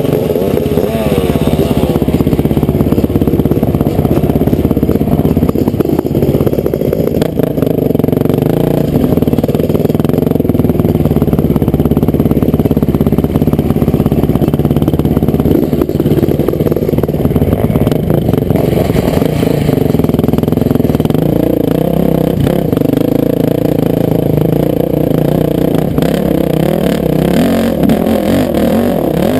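Honda CR500 two-stroke motocross bike engine, loud and continuous, revving up and down repeatedly.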